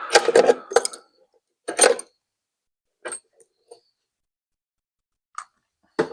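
Small metal objects clinking and clattering as they are handled on a workbench: a quick cluster of knocks in the first second, then single sharp clinks every second or two.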